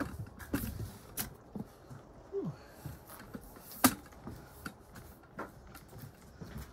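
Footsteps on old wooden floorboards: scattered knocks and clicks, the loudest a sharp click about four seconds in, and a short creak falling in pitch about two and a half seconds in.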